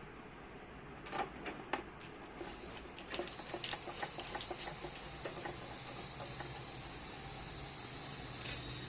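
Screws being driven to fasten a motherboard into a metal PC case: a scatter of small metal clicks and taps from the screwdriver and parts for about five seconds, then only a steady faint hiss.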